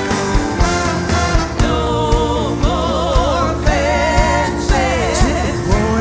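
Live band playing a gospel-tinged pop-rock song with a steady drum beat about twice a second, and a solo voice singing with wide vibrato from about two seconds in.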